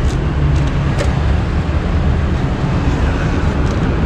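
Steady low rumble of road traffic and outdoor street background, with a few light clicks.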